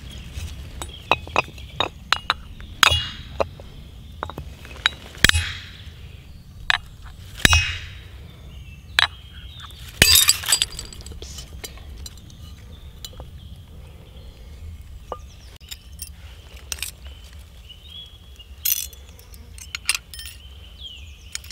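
A glass bottle struck with a knife on a stone to break its top off: a series of sharp, irregular clinks and knocks, the loudest about five, seven and ten seconds in.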